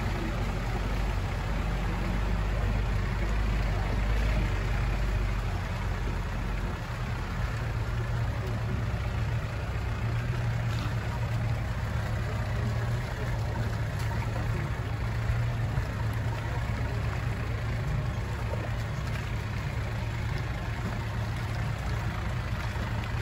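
Land Rover 4x4's engine running steadily with a low drone as it drives. The deepest rumble eases about five seconds in.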